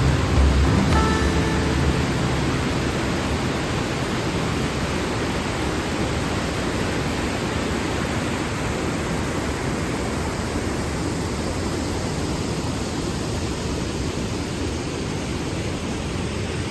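Waterfall rushing: a steady, even hiss of falling water. Background music fades out in the first couple of seconds.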